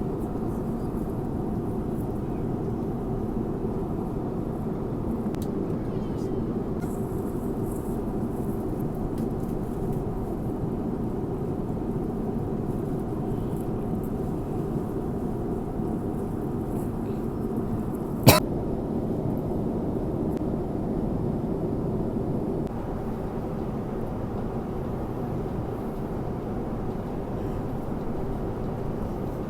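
Steady airliner cabin noise in flight, a constant even rush, with one sharp click about 18 seconds in.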